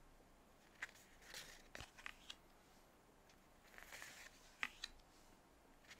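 Faint handling of 2023 Bowman baseball cards being flipped through one by one: soft swishes of card stock sliding over card and a few light flicks and clicks.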